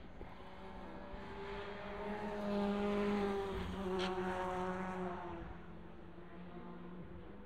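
Chevrolet Cruze WTCC touring car's turbocharged 1.6-litre four-cylinder engine running hard through a bend as it passes. It grows louder to a peak about three seconds in, gives a single sharp crack about four seconds in, then fades away with its note dropping.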